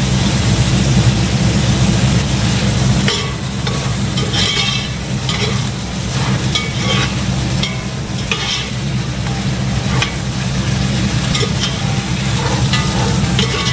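A metal ladle stirring and scraping meat in a large pot on a gas stove, with the food sizzling. Irregular scrapes and clinks start about three seconds in, over a steady low hum.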